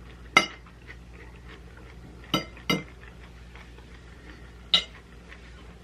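A utensil clinking against a plate or bowl four times, short ringing clinks spread over several seconds, as food is picked up while eating.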